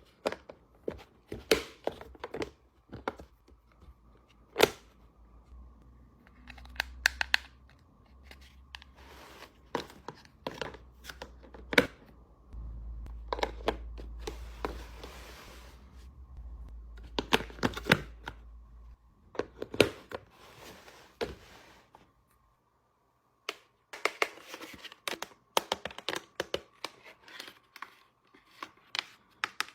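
Unpacking of miniature plastic toy kitchen pieces: a string of sharp clicks and knocks as small plastic parts are handled and set down, and in the middle a stretch of several seconds of packaging being torn and crinkled.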